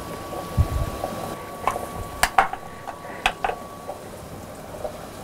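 A few sharp clicks and knocks of a small kitchen knife on a wooden chopping board while vegetables are cut, over a faint steady hum.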